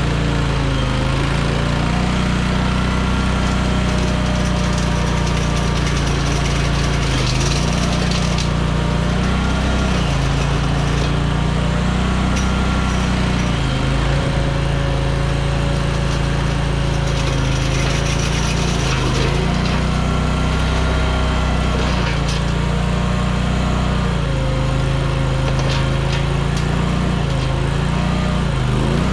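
Mini skid steer engine running hard with the flail mower, its pitch sagging and recovering every few seconds as it comes under load.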